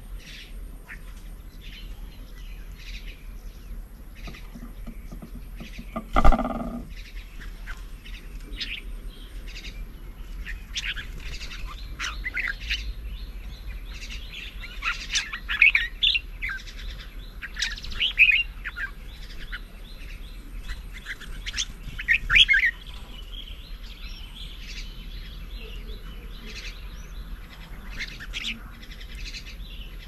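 Songbirds chirping in short repeated calls, busiest through the middle, over a steady outdoor background. One loud thump about six seconds in.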